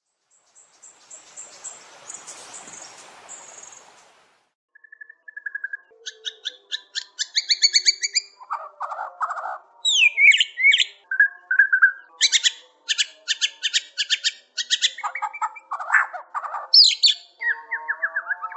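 White-rumped shama (murai batu) in full song: a loud, varied run of clear whistles, rapid trills and sliding notes, starting about five seconds in after a few seconds of faint hiss.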